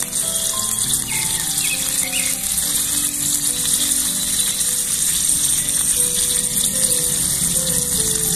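Oil sizzling steadily in a small aluminium pot as it fries, with background music of slow, held melody notes playing underneath.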